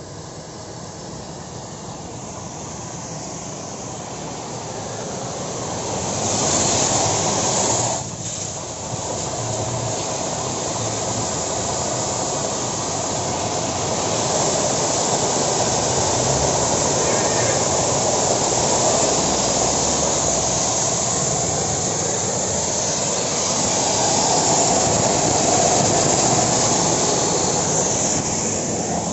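High-pressure jetting machine on test, its nozzle spraying water in a steady hiss with a low rumble underneath. The sound builds over the first few seconds and dips briefly about eight seconds in.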